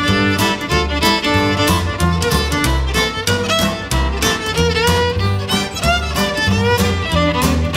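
Fiddle playing a country blues melody with sliding notes over strummed acoustic guitar keeping a steady rhythm, with low bass notes underneath.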